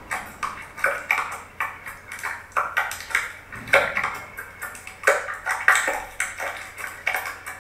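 Glossy orange slime squeezed and kneaded by hand, giving a quick, irregular run of wet clicks and pops, about two to three a second.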